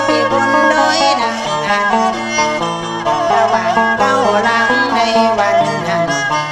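Northern Thai Saw Long Nan instrumental music: a salo bowed fiddle plays the melody over a plucked sueng lute and a steady low drone.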